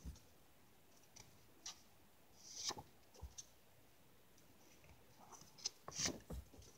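Paper index cards handled in a stack: brief papery rustles and light flicks as one card is slid off to show the next, with the most handling about a third of the way in and again near the end.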